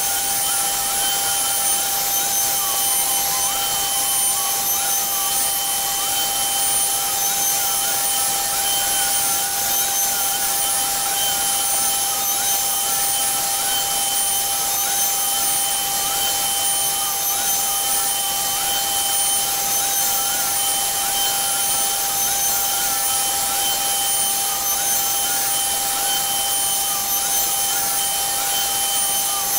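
CNC Shark router spindle whining steadily as its bit carves relief into a wooden door panel, with a fainter tone wavering up and down in pitch as the head moves through the cut.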